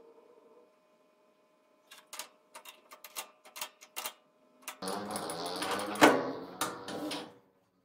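Sharp metal clicks and knocks as a cutter holder is fitted and clamped on a lathe tool post. Then the lathe's tailstock slides along the cast-iron bed ways with a continuous rough metal scrape, a loud clunk partway through, and an abrupt stop.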